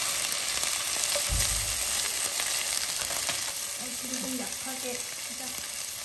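Garlic and onion sizzling as they stir-fry in oil in a pan, stirred with a utensil.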